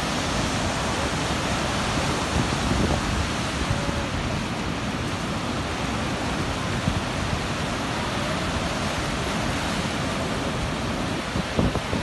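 Rough sea surf breaking on the beach: a steady, dense rush of water with a low rumble underneath, and a few brief thumps near the end.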